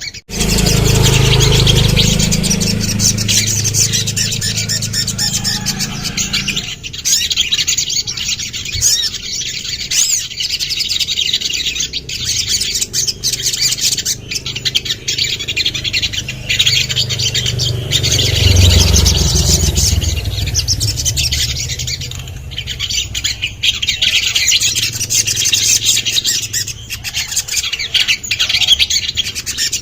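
A sogon (sogok ontong) bird singing in rapid, high, chattering chirps and trills. A low steady hum sits under it at the start and again about eighteen seconds in.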